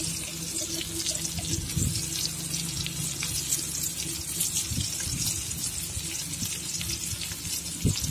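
Whole pomfret frying in oil on a flat iron tawa, sizzling and crackling steadily, over a low steady hum.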